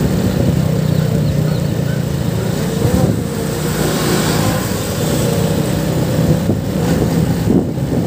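Motorcycle engine running at a steady pace while riding, under a steady rush of road noise.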